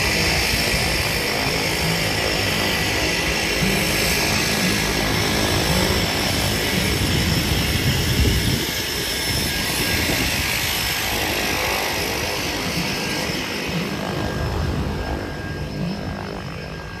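Cessna 208B Grand Caravan's single turboprop engine and propeller running as the plane taxis past: a steady high turbine whine over the propeller's drone. It is loudest as the plane passes about eight seconds in, then fades as it moves away.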